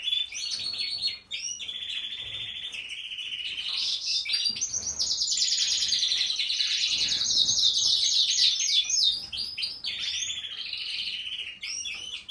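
Norwich canary song: an unbroken run of high, fast trills and rolls, each trill a rapid string of repeated notes, changing from one trill to the next every second or so.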